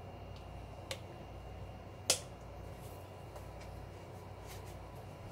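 Low steady kitchen hum with a light click about a second in and a sharper click or knock about two seconds in: a bottle being handled, capped and set down on the counter.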